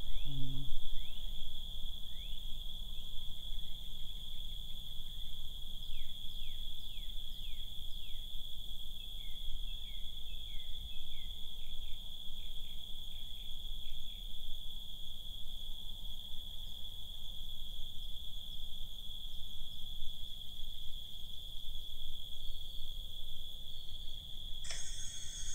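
A chorus of crickets shrilling steadily on one high pitch, with other short, falling insect chirps through the first half. A brief burst of noise comes right at the end.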